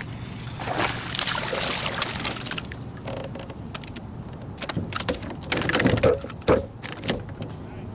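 Water splashing and sloshing around a fishing kayak, followed in the second half by a quick run of sharp knocks and clicks.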